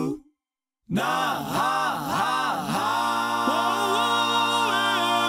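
Background pop song with layered vocal harmonies. It drops out for about a second near the start, comes back with repeated swooping notes, then settles into a held chord with a voice gliding over it.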